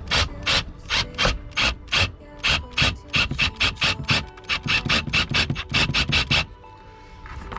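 A hand ratchet clicking steadily, about four clicks a second, as a screw for the front lip is driven in; the clicking stops suddenly near the end.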